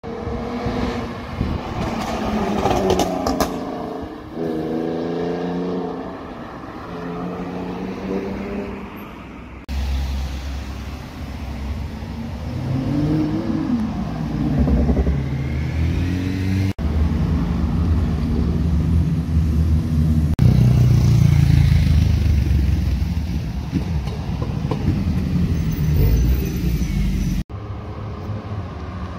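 Cars driving past one after another, engines revving as they accelerate, the pitch climbing in steps with each gear.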